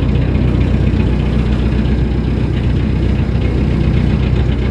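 Narrowboat's inboard diesel engine running steadily, heard from the stern deck.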